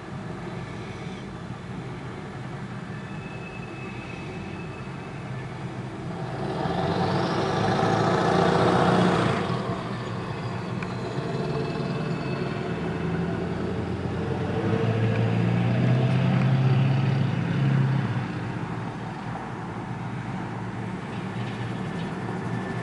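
Freight train cars rolling steadily through a grade crossing, with road vehicles passing close by: a loud rush about six to nine seconds in, and another vehicle with a low engine drone about fifteen to eighteen seconds in.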